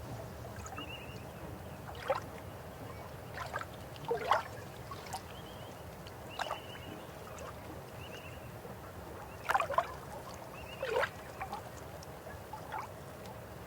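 River water flowing with a steady rush, broken by short gurgles and splashes. The loudest come about two, four, nine and a half and eleven seconds in.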